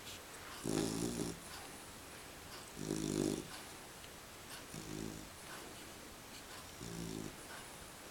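A sleeping animal snoring: four pitched snores about two seconds apart, the first two louder than the last two.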